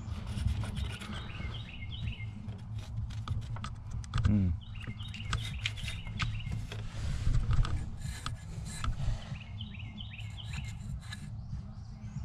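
Close rubbing and scraping with many scattered clicks as a hand works around the RV's engine compartment, cover and carpet. Birds chirp a short phrase three times.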